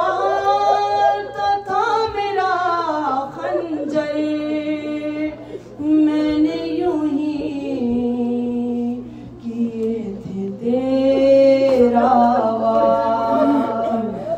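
Unaccompanied voice singing a salam in soz-khwani style: long held notes that slide between pitches, broken by a few short pauses for breath.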